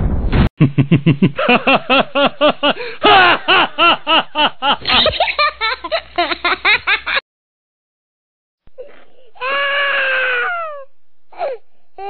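Children laughing and giggling in quick ha-ha pulses, about four or five a second, which stop suddenly after about seven seconds. A couple of seconds later comes one drawn-out call that falls slightly in pitch.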